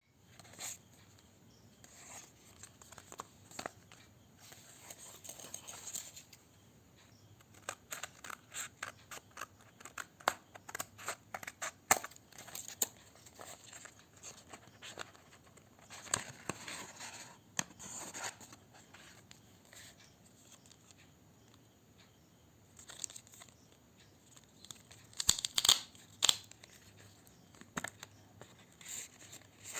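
Packaging of an ATM card being handled and torn open: bursts of rustling, crinkling and tearing with many small sharp clicks and taps in between.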